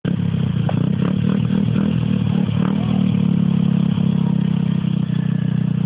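Pit bike engine running, its note wavering with a few knocks over the first three seconds, then holding steady.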